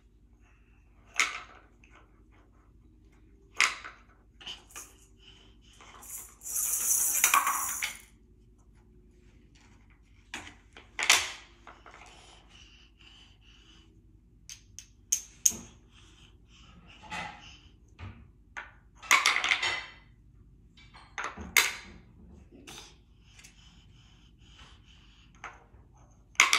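Wooden and plastic toy pieces clacking and knocking together in scattered, irregular taps as a ring-stacking toy is handled, some knocks with a short ringing. A longer rustling noise comes about seven seconds in.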